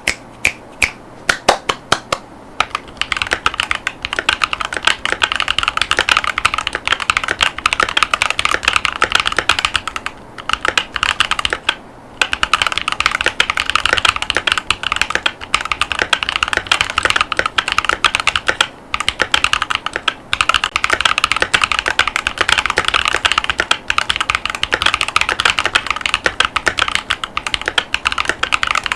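Typing on a Keychron V1 mechanical keyboard with Gateron Baby Kangaroo tactile switches and ABS OEM-profile keycaps. A few separate key presses, then fast continuous typing with a few short pauses.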